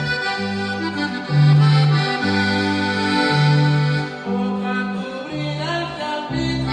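Regional Mexican corrido played by a small band: an accordion carries the melody over held electric bass notes that change about once a second, with no singing.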